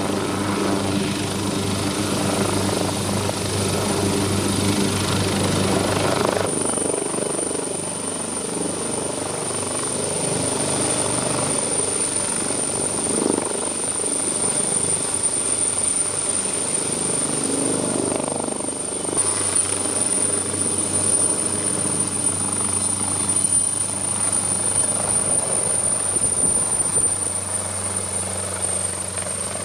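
Leonardo/Boeing MH-139A Grey Wolf twin-turbine helicopter running, its engines and rotor sounding together with a steady high turbine whine as it lifts off and flies past. The sound changes abruptly twice.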